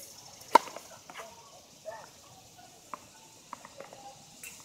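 Tennis racket striking the ball on a serve: one sharp pop about half a second in, followed by a few much lighter knocks and faint distant voices.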